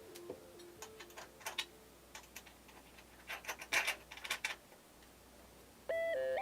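Soft background music dies away, then a scatter of light clicks and taps follows, bunched together about four seconds in. Music with a steady melody starts again near the end.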